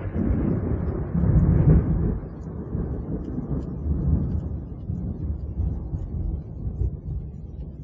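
Thunder rolling as a deep rumble, swelling about a second and a half in, then slowly dying away.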